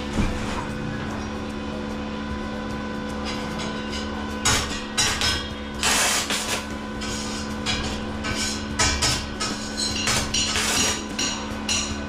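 Irregular hammer strikes and clanks, coming in clusters from about four and a half seconds in, over a steady hum.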